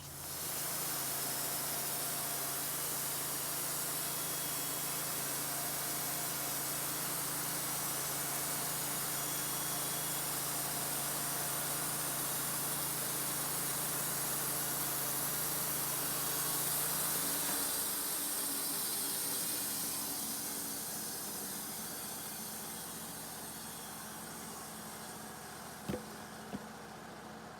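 Wood-Mizer LT35 band sawmill running, its blade sawing through a cedar log with a steady hiss over a low machine hum. About two-thirds of the way through, the hum changes and the sound slowly dies down, with two light knocks near the end.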